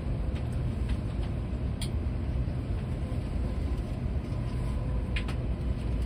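Steady low rumble of an N700S Shinkansen train running, heard inside the passenger car, with a couple of faint clicks.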